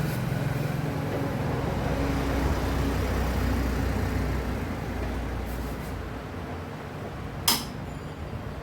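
Low steady hum with a single sharp click, like a tool or screw striking the metal casing, about seven and a half seconds in, while a window air conditioner is being unscrewed for disassembly.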